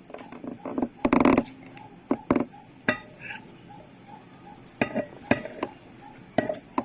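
Cutlery clinking and scraping against a plate while eating fried rice: a longer scraping burst about a second in, then several sharp separate clinks.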